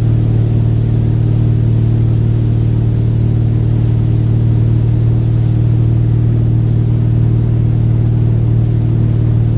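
Tow boat's engine running steadily at wake-surfing speed: a constant low drone that holds one pitch, with no change in speed.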